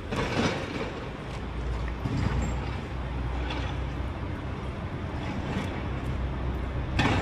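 A vehicle engine running with a steady low hum over traffic and street noise, with short louder swells of noise near the start and near the end.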